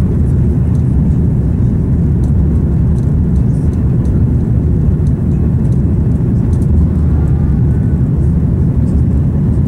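Steady low rumble inside the cabin of an Airbus A340-300 climbing out after takeoff: its four CFM56 engines at climb power and the rush of air past the fuselage.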